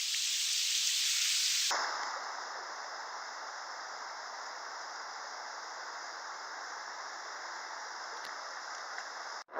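Creek water running in a steady rushing hiss, louder and brighter for the first couple of seconds, with a steady drone of insects behind it.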